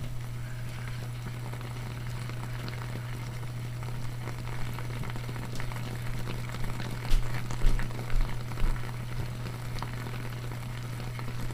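Peter Davey heater submerged in a glass of water, running on mains power with a steady low hum, while the water around it bubbles and crackles as it heats rapidly. The crackling grows denser after about four seconds, with a few louder pops and thumps around seven to nine seconds.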